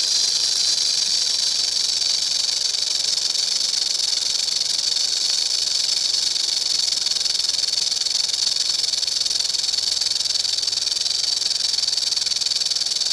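Rattlesnake's tail rattle shaking in a continuous warning buzz: one steady, unbroken, high-pitched dry hiss that holds at an even level throughout.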